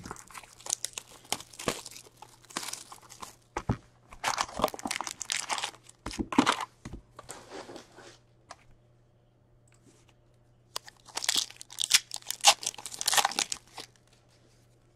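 Plastic shrink wrap being torn off a trading-card hobby box and crumpled in the hands, with a long run of crinkling and tearing. After a short pause, the foil card packs crinkle as they are handled and torn open.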